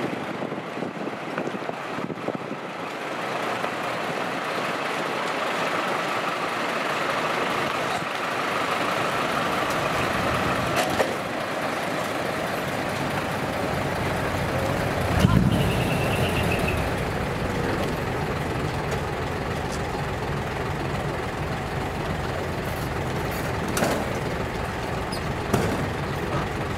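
Truck-show ambience: background voices over a steady rumble from large trucks, the low rumble growing after about a third of the way in. About halfway through comes a brief low thump.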